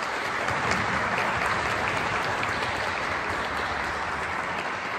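Congregation applauding, many hands clapping in a steady patter.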